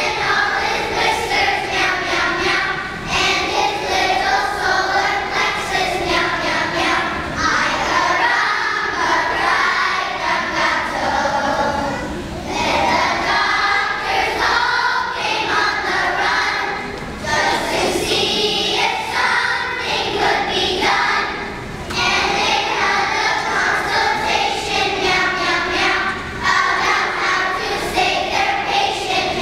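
Children's choir singing in phrases, with brief breaks between phrases.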